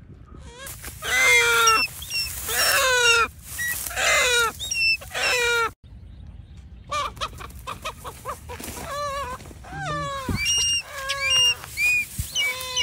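A bird giving a series of loud, harsh squawks, each sliding down in pitch. There are a few longer calls in the first six seconds, then shorter, quicker ones.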